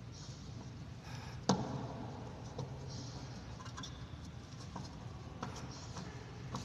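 Scattered small clicks and taps of a screwdriver and wire ends being worked at an air conditioner's wiring terminals, with one sharper knock about a second and a half in, over a steady low hum.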